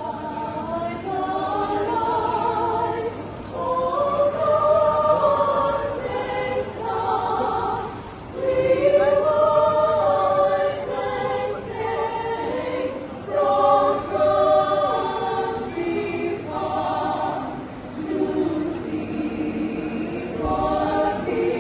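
A choir singing in harmony, several voices holding sustained notes in phrases of a second or two.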